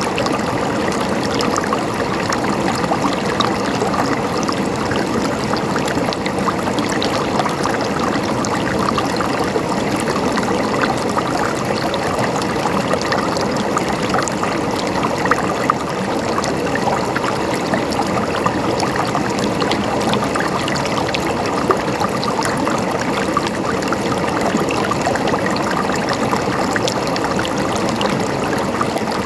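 Flowing stream water, gurgling and trickling steadily with a dense patter of small splashes.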